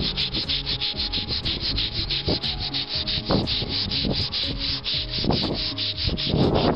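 Rapid back-and-forth rubbing, about five strokes a second, as a part of the car is polished by hand, with a few heavier scuffing strokes in the second half.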